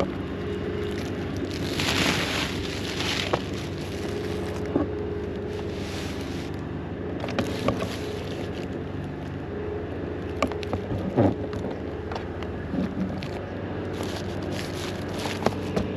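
Rustling and crackling of a self-adhesive tar roofing sheet being handled and pressed down, with its backing membrane peeled off, and scattered taps and clicks. A steady engine-like hum runs underneath.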